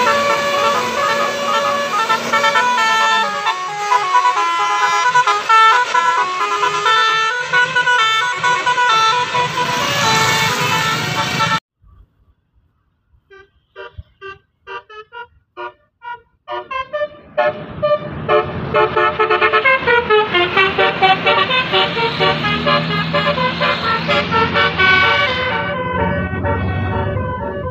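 Bus 'telolet' horns: multi-tone bus horns playing quick melodies of short notes. The first melody cuts off suddenly about halfway through, a few short soft toots follow, and then another loud horn melody plays, fading near the end.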